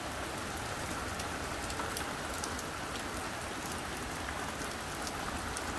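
Steady rain falling on a street and pavement, with scattered sharp ticks of single drops.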